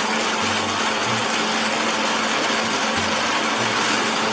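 Electric kitchen blender running at a steady speed: a constant whirring noise with a low hum underneath.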